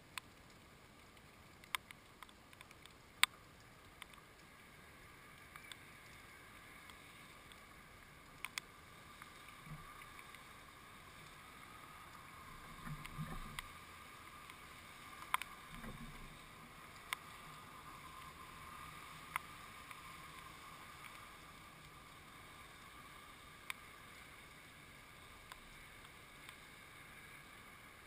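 Faint steady background hiss with sharp ticks every few seconds and two soft low bumps about halfway through: house sparrows pecking and shifting on a wooden feeder with a fat-ball net.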